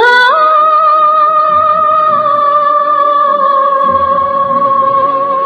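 Music: a high singing voice slides up and holds one long, slightly wavering note over quiet accompaniment.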